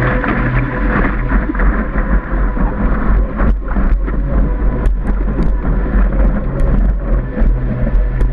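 Seawater rushing and splashing around a surfboard's nose-mounted camera as the board is paddled into a wave and then rides the breaking whitewater, with wind buffeting the microphone. Sharp ticks of spray hit the camera housing around the pop-up, and a steady low hum runs underneath.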